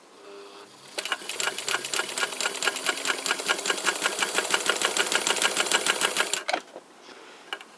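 Phoenix Gloria straight-stitch sewing machine starting up and running at speed, its mechanism ticking in a fast, even rhythm for about five seconds before stopping. It runs quiet and smooth.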